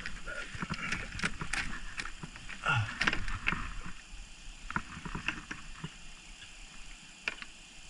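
Scattered knocks, clicks and rattles of fish and tackle being handled in a jon boat. They come thick in the first four seconds, then thin out to a few clicks.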